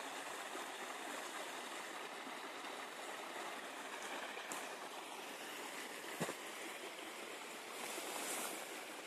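Steady rushing of a mountain stream, with one short click about six seconds in.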